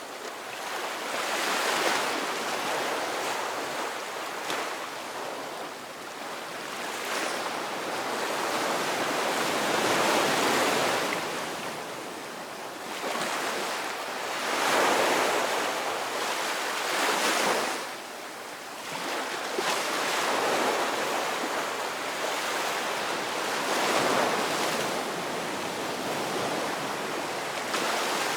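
Ocean surf: waves breaking and washing in, the rushing swelling and ebbing every few seconds.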